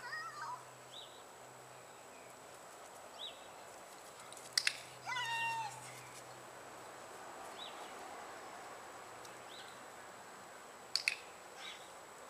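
A dog-training clicker clicks twice, about four and a half seconds in and again near the end, each a sharp double click. Just after the first click comes a short high-pitched call that falls in pitch.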